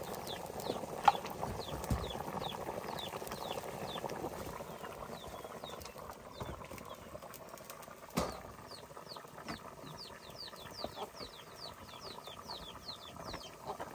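Bird chirping: a series of short, high, falling chirps that come quicker and closer together in the second half. Two sharp knocks, about a second in and about eight seconds in.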